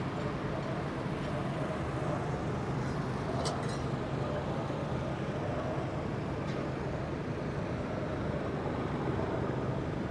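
Steady engine drone over a wash of trackside noise, with a few faint brief clicks.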